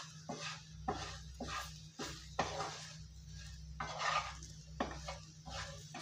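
Wooden spatula stirring and scraping diced potatoes around a non-stick frying pan, a series of short scrapes and knocks about twice a second.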